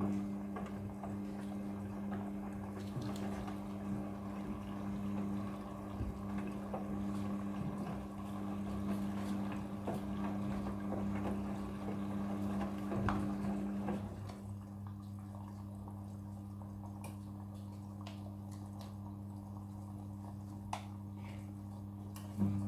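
Midea front-loading washing machine on a quick wash: water sloshing and splashing in the drum over a steady hum. About two-thirds of the way through the sloshing stops and only the hum goes on.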